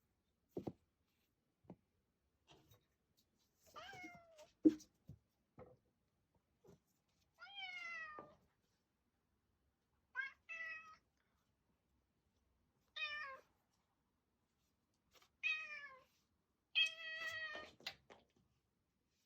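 A kitten meows about six times, several of the calls falling in pitch at the end, the last one the longest and loudest. Sharp knocks and taps are scattered between the calls, the loudest one a little under five seconds in.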